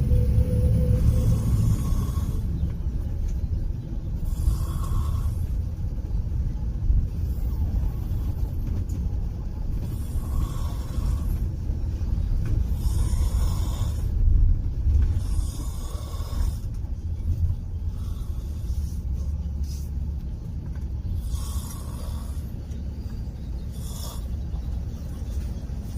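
A person snoring in long breaths every few seconds, over the steady low rumble of a moving bus.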